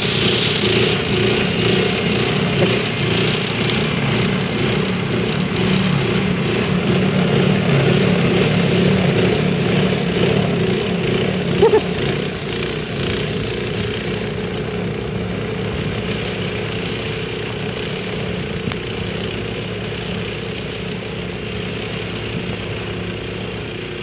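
Toro snowthrower's small engine running steadily under load as it clears deep snow, its sound slowly fading in the second half as the machine moves away. A brief high chirp stands out about halfway through.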